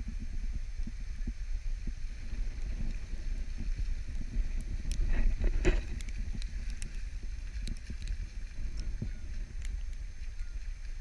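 Low, steady wind rumble on the microphone of an action camera mounted on the outside of a moving vehicle, with faint crackles. It swells louder for a moment about halfway through.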